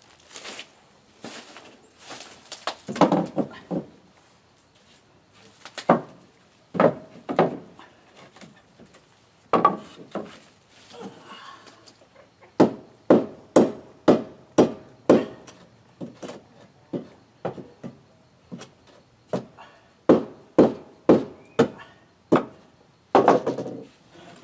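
Hammer blows on wooden porch deck boards, in runs of steady strikes about two a second, as the new boards are nailed down, with scattered knocks of boards being set in place.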